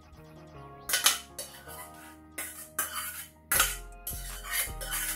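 Stainless steel pot being tipped and knocked against a ceramic baking dish as apple filling is emptied into it: a series of metal clanks and scrapes, the loudest about a second in and again past three and a half seconds. Soft background music plays underneath.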